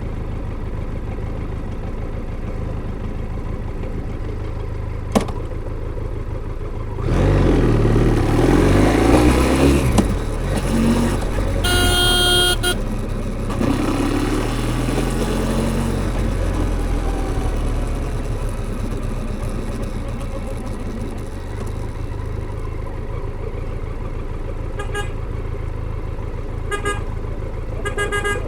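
Benelli TRK 502's parallel-twin engine on its stock exhaust, running steadily, then revving up about seven seconds in before settling back to a steady run. A short horn toot sounds about twelve seconds in.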